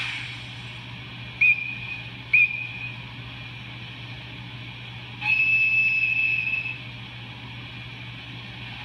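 EF510 electric locomotive horn sound effect from a model-railway sound setup: two short high toots about a second apart, then one longer toot of about a second and a half, over a steady low hum.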